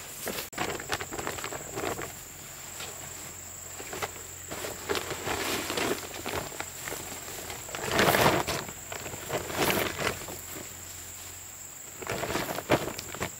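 Irregular rustling and knocking, loudest about eight seconds in and again near the end, over a steady high-pitched insect drone.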